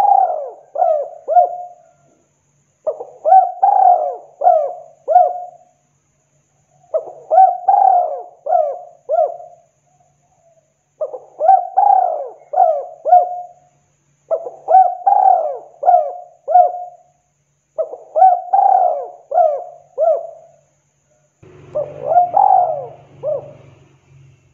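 Spotted dove cooing: a phrase of four or five quick coos, repeated about every three and a half seconds, seven times in all.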